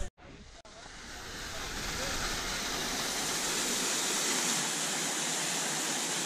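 Fast-flowing mountain water rushing steadily. It fades in after a brief dropout at the start, then holds even.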